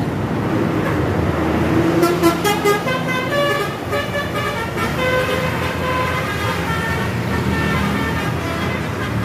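A bus's telolet horn plays a tune of short stepping notes starting about two seconds in, over steady engine and traffic noise.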